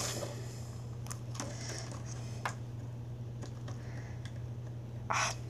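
A small screwdriver clicking and scraping against hard plastic toy parts as they are pried at, in scattered light ticks. A louder short scrape comes near the end.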